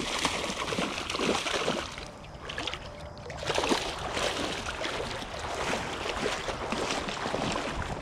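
Hooked smallmouth bass splashing at the surface of shallow creek water as it is fought on the line, with ongoing sloshing and splashes.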